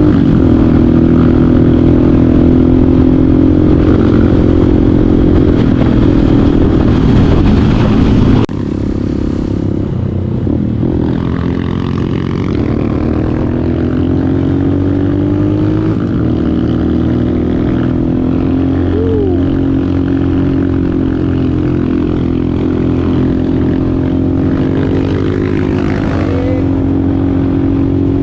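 Motorcycle engine running continuously under way, its pitch rising and falling slowly. An abrupt cut about eight and a half seconds in leaves it a little quieter afterwards.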